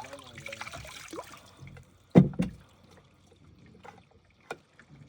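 Water trickling and splashing for about the first second and a half, then a single loud knock about two seconds in and a fainter click near the end.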